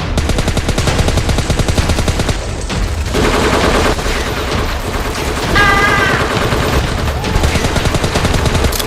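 Rapid automatic gunfire, shots following one another many times a second without a break, with a short pitched cry about halfway through.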